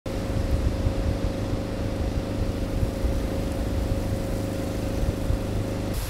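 A steady motor hum holding one pitch, over an uneven low rumble of wind on the microphone; both cut off suddenly at the very end.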